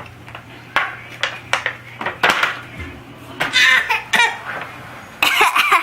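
Bursts of laughter and giggling, a small child's among them, in a small room.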